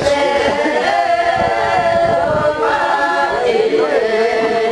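A group of voices singing a Tamang syabru song without instruments, several voices holding long notes together.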